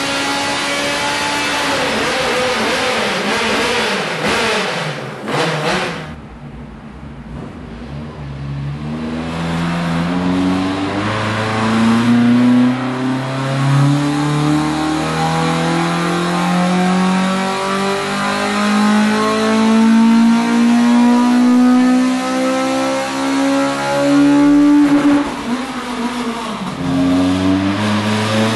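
2.5-litre Millington Diamond four-cylinder race engine in a Ford Escort Mk2 rally car, running on a rolling-road dyno during ECU mapping. It is held at steady high revs, backs off about five seconds in, then pulls slowly up through the rev range at full throttle for about fifteen seconds. Near the end it drops briefly and starts to climb again.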